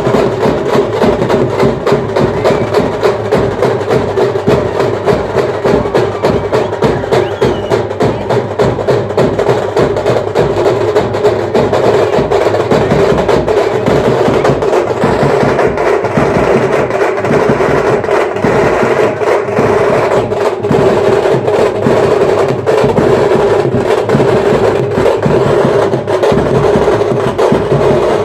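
Street band percussion playing fast, dense drumming, with the sharp strokes of timki drums over a held tone.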